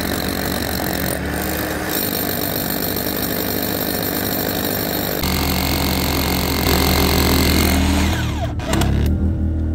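Corded hammer drill boring through a brick foundation wall: a steady motor whine over the rattle of the hammering. It grows louder about five seconds in and breaks off briefly near the end.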